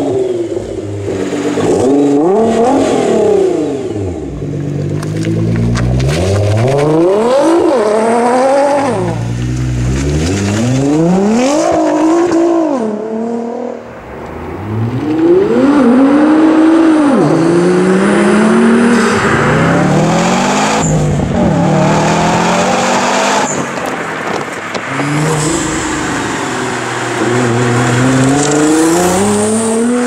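Nissan GT-R R35's twin-turbo V6 being driven hard, its engine note climbing sharply and falling back again and again as the car accelerates and lets off.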